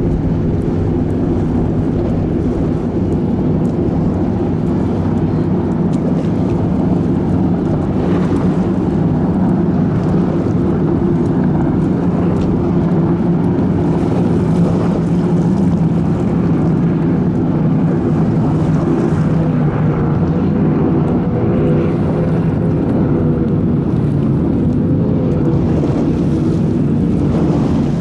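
High-performance powerboat engines running at speed as the boats pass, a steady loud drone.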